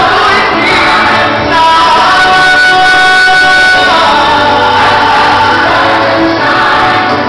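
Music: a group of voices singing a slow song, with a long held note in the middle.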